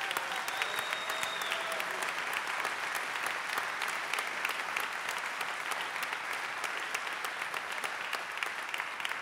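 Audience applauding: a steady round of many people clapping, with a brief high whistle near the start.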